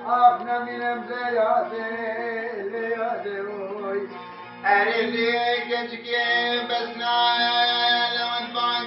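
A man singing to a bağlama (long-necked Turkish lute); a dip in the sound is followed by a strong vocal entry about five seconds in, which then holds.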